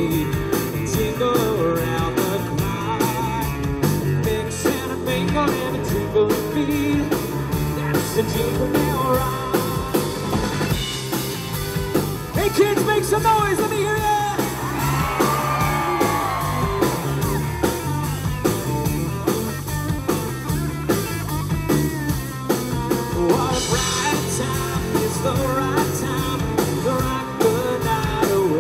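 Live rock band playing: a lead vocalist sings into a microphone over a steady drum-kit beat, bass and guitar.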